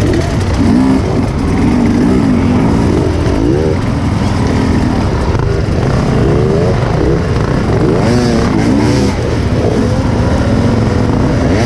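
Several enduro dirt bikes running together, their engines revving, pitch rising and falling as the overlapping engines open up and back off.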